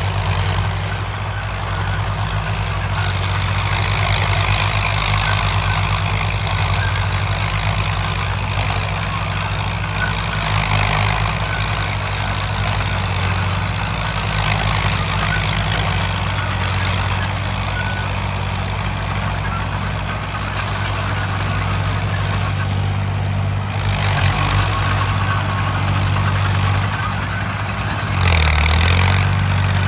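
Classic Fiat tractor's diesel engine running steadily while pulling a plough. Near the end the engine note drops and grows louder.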